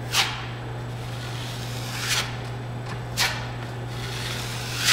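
Steel drywall knife scraping joint compound: a few short, sharp scrapes one to two seconds apart, over a steady low hum.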